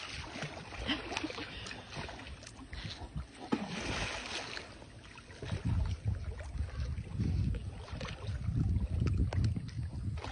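Pool water splashing and sloshing as a jaguar paddles and lunges in it, with wind rumbling on the microphone, stronger in the second half.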